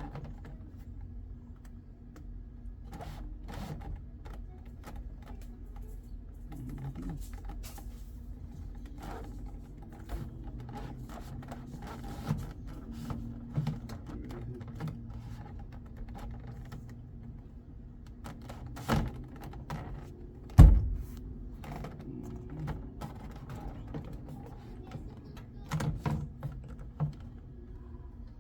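Scattered small clicks and taps of hand work on a car door panel, with a low hum beneath and one loud knock about two-thirds of the way through.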